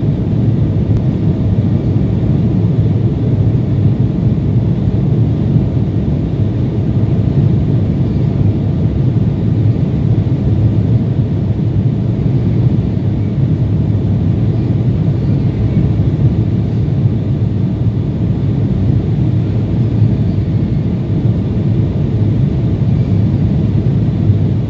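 Steady, low rumble of an airliner in flight heard from inside the passenger cabin: engine and airflow noise, even and unbroken.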